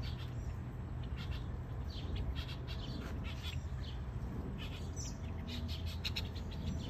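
Birds chirping: many short, quick chirps overlapping, over a steady low rumble.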